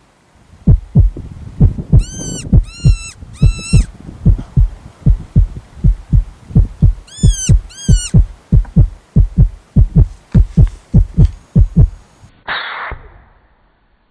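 Heartbeat sound effect: deep thumps repeating about two to three times a second. Two short runs of high, arching squeals sound over it, four and then three, and a short blast comes near the end, after which it goes quiet.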